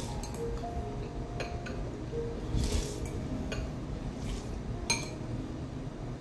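Noodles being slurped fast in short bursts, with metal chopsticks clinking against ceramic noodle bowls several times. Soft background music underneath.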